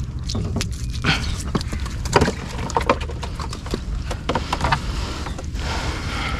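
Wet nylon gill net being hauled hand over hand into a small boat: irregular clicks and knocks of the net, its floats and the fishermen's hands against the hull. Water splashes and pours off the net near the end.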